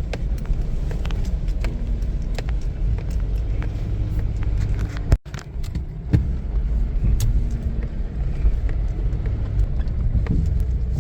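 Nissan R50 Pathfinder 4x4 crawling over a rutted dirt trail: a steady low engine and tyre rumble with scattered knocks and rattles as the suspension flexes. There is a brief dropout just past halfway.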